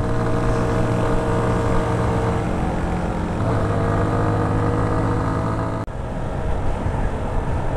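Italika Z150's single-cylinder four-stroke engine running at cruising speed, heard from the rider's seat with wind rush over the microphone. The engine note drops to a steady lower pitch about halfway through, and about six seconds in the sound changes abruptly to mostly wind rush with the engine fainter.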